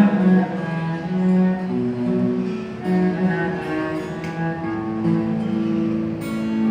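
Cello playing a slow bowed melody of long held notes, an instrumental passage of the song.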